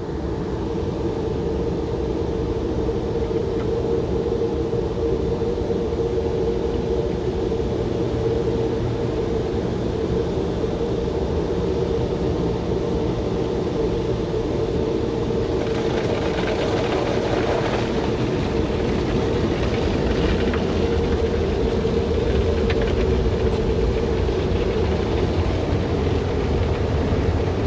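Automatic car wash running, heard from inside the car's closed cabin: a steady rumble and hum of the wash equipment and water on the bodywork, with more hiss from a little past halfway through.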